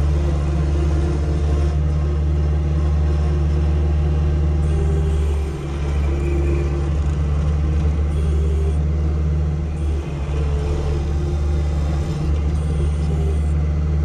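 Farm tractor engine running steadily at a constant pitch while pushing manure, with a couple of brief dips in level.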